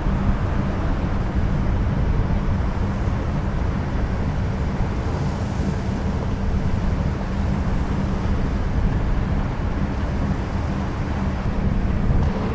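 Steady low engine drone of a passing ship, with a constant low hum under it, mixed with wind buffeting the microphone.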